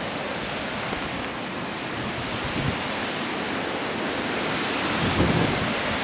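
Strong wind blowing across the camcorder's microphone: a steady rushing with a stronger gust about five seconds in.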